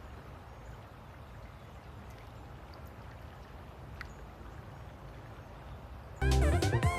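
Faint, steady outdoor ambience, a low rumble with a faint click about four seconds in; about six seconds in, guitar background music starts suddenly and loudly.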